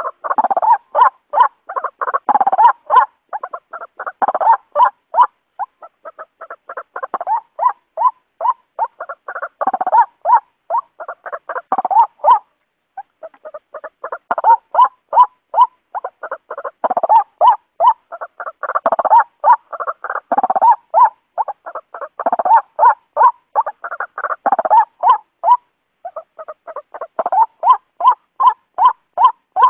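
Waterhen calling: long runs of short repeated call notes, several a second, broken by brief pauses about twelve seconds in and again near the end.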